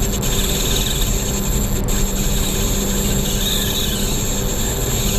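Spinning reel's drag screaming steadily as a hooked fish runs hard and strips line off a small 1000-size ultralight reel.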